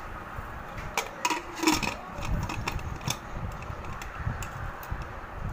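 Metal clinks and scrapes of a Hawkins pressure cooker's lid being fitted and locked onto the cooker, a few sharp clicks with the loudest about a second and a half in, over a low background rumble.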